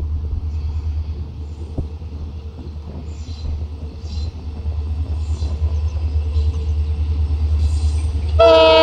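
Diesel locomotive approaching with a steady low engine rumble. Near the end its horn starts suddenly with a loud, sustained blast.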